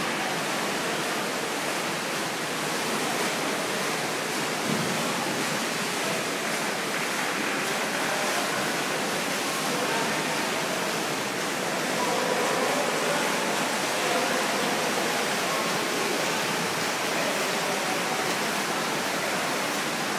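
Steady wash of splashing from swimmers racing in an indoor pool, blurred by the echo of the pool hall, with faint distant voices.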